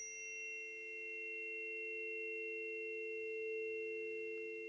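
Two planetary tuning forks ringing together after being struck, sounding the Venus and Chiron frequencies as two steady, pure tones close in pitch with faint high overtones.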